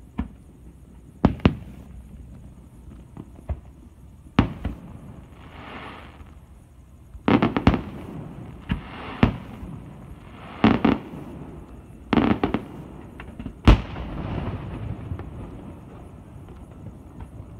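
Aerial firework shells bursting: about ten sharp bangs at irregular intervals, some in quick clusters, with a crackling hiss after several bursts. The loudest bang comes about three quarters of the way in.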